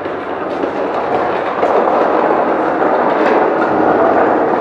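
A large wooden stretcher frame carrying mounted posters being moved along a concrete corridor floor, making a steady loud rumble that builds over the first second or two.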